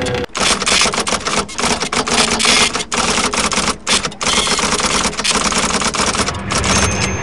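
Harsh, dense crackling static-like noise, cut off by several brief dropouts.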